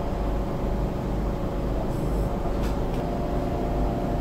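Steady hum and low rumble inside an MRT train carriage, with several steady tones, and a few faint clicks about two to three seconds in.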